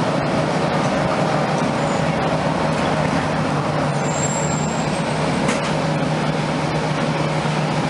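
Steady cabin noise inside a NABI 31LFW transit bus: the air-conditioning blowing on high over the Cummins Westport ISL-G natural-gas engine's low steady hum. A brief faint high whistle comes about four seconds in, and a short tick about a second later.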